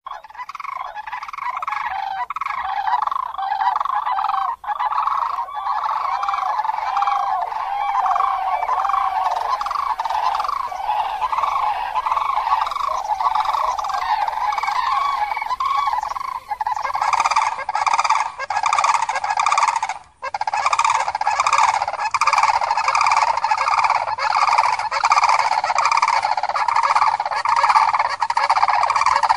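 A flock of common cranes calling: many overlapping calls repeated without pause in a dense chorus, with a brief gap about two-thirds of the way through.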